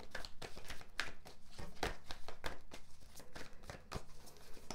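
Tarot cards being handled: a run of light, irregular snaps and flicks of card stock as the deck is worked and cards are drawn.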